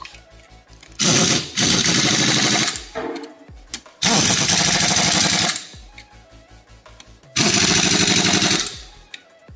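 Pneumatic impact wrench hammering in three bursts of a second or two each, driving in the bolts on a floor grinder's grinding-head plates.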